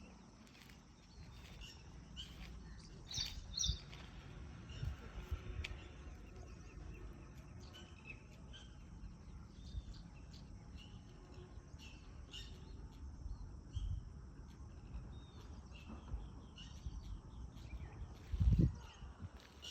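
Outdoor ambience with birds chirping on and off, in short calls, over a low steady rumble. A louder low thump comes near the end.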